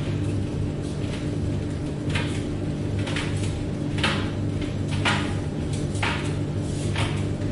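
Tumble dryer running: a steady motor hum with a short swish about once a second as the drum turns.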